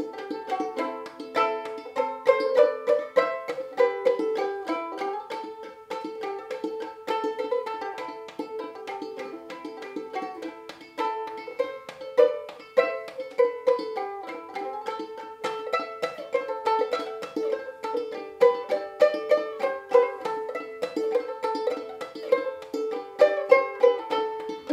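Gold Tone banjo ukulele in aCEA tuning, played clawhammer style: a fiddle tune in A minor in quick plucked notes with a steady driving rhythm.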